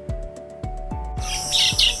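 Background music with a steady beat. About a second in, birds start chirping over a high steady hiss.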